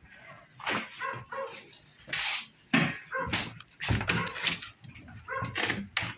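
A dog barking and yipping in a quick string of short barks.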